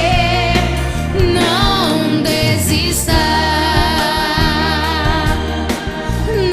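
Gospel song with a singer holding long notes with vibrato over a band's bass and drums, with cymbal strokes.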